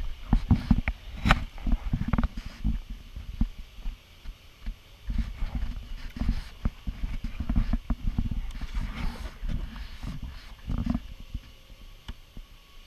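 Kayak paddling heard from a camera on the hull: irregular muffled low thumps and knocks as the double-bladed paddle strokes and bumps against the plastic kayak, with a few sharper clicks, busiest in the first second or two.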